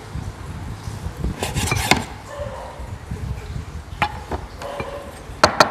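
Kitchen knife slicing a raw salmon fillet on a wooden cutting board, the blade knocking on the board: a quick cluster of knocks about one and a half seconds in, a single one about four seconds in, and two sharp, louder ones near the end.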